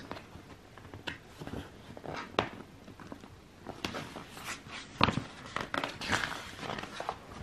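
Glossy paper pages of a programme being handled and turned: a handful of short rustles and flaps, the sharpest about five seconds in.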